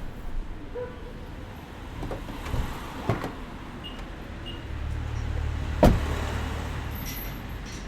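City street traffic ambience: a low rumble of motor vehicles that swells as a vehicle passes in the second half, with a couple of sharp clicks about three seconds in and one loud sharp knock just before the six-second mark.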